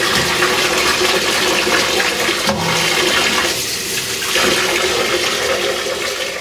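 Cold water running steadily from a tap to rinse cubed venison, the stream changing briefly about halfway through.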